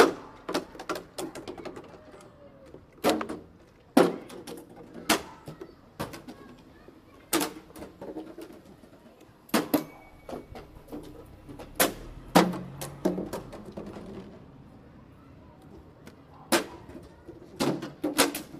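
Plastic water bottles thrown down and hitting the ground: a string of sharp smacks with uneven gaps, more than a dozen in all.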